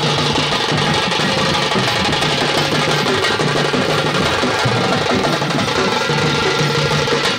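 Folk procession drums, barrel drums and frame drums, beaten continuously in a dense, loud rhythm.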